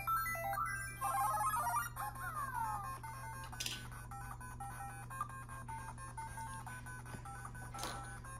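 LEGO Super Mario interactive figure playing electronic game music and sound effects from its built-in speaker: a looping beeping melody, a louder run of notes about a second in, then falling-pitch sweeps, before the softer melody loops on. Two short hissy bursts come in the middle and near the end.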